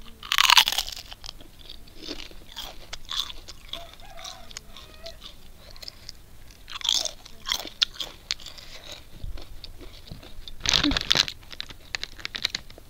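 A thin crisp chip being bitten and chewed close to the microphone: a loud crunch about half a second in, further loud crunches around seven and eleven seconds, and smaller chewing crunches between.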